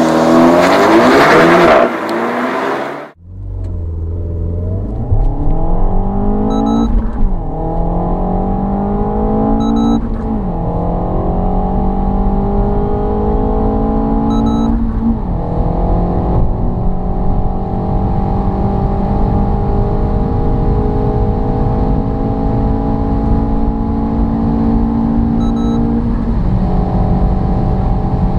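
Renault Mégane RS's 1.8 TCe turbocharged four-cylinder at full-throttle acceleration, heard from inside the car: the engine note climbs in each gear and drops sharply at each of four upshifts. It follows a short loud burst of car noise that cuts off about three seconds in.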